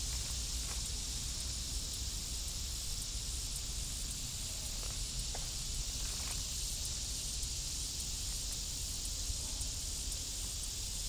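Steady high insect chorus, a continuous shrill hiss that does not change, over a low rumble, with a few faint ticks.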